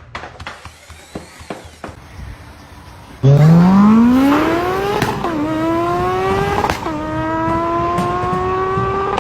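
A few clicks and knocks, then a motor starts about three seconds in and revs up steeply to a high, steady pitch. Its pitch dips briefly twice and recovers while it keeps running.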